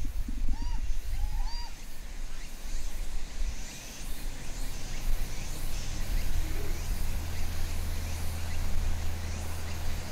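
Outdoor background noise with a low rumble. A few short, arching chirps come in the first two seconds, and a steady low hum joins about four seconds in.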